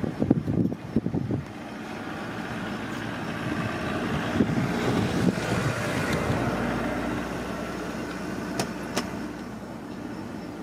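A vehicle passing: a smooth noise swells to a peak about six seconds in and then fades. It follows a second and a half of uneven low rumbling, and two sharp clicks come near the end.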